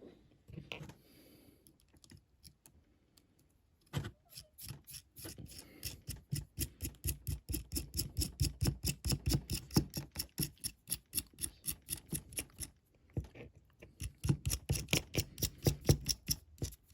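Rapid, even clicking of small metal parts, about five clicks a second, as tiny nuts are screwed down onto threaded studs on a diecast model car. It starts about four seconds in, pauses briefly, then carries on.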